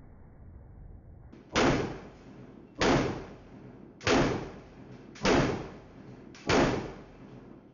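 Pistol fired five times at a steady pace, about one shot every 1.2 seconds, each shot sharp and followed by a short echoing tail.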